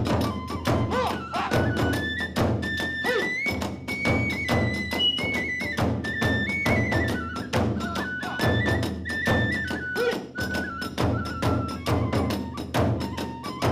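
Hiroshima kagura music: a high bamboo flute melody over fast, driving drum strokes and clashing small hand cymbals.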